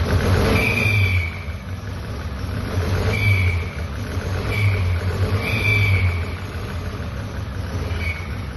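Turbocharged Ford Pinto four-cylinder engine running and being blipped, with a short high whistle coming in on each rise in revs, five times in all. The whistle is a vacuum leak at the inlet manifold gasket.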